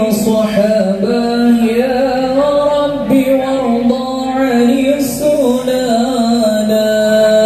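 Sholawat, Islamic devotional praise, chanted by male voices and amplified through a line-array PA system. The melody moves slowly in long held notes.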